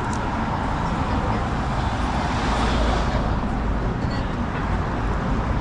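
Street traffic noise, with a car passing close by and swelling to its loudest about two to three seconds in before fading.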